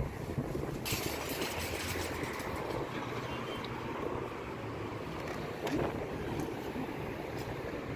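Plastic shopping cart rolling over paving stones: a steady rattling rumble from its wheels, with a sharp knock about a second in and another near the end.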